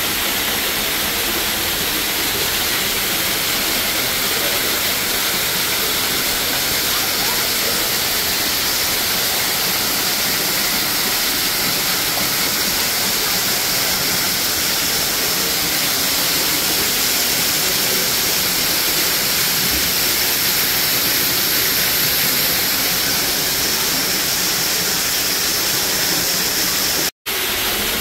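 Artificial waterfall pouring off a rock overhang into a pool: a steady, even rush of falling water. It cuts out for a split second near the end.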